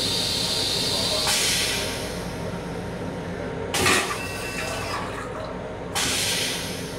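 Railcar toilet flush cycle: a steady hiss of rinse water, then a brief rush, a short sharp whoosh about four seconds in as the stainless-steel bowl empties, and another whoosh near the end.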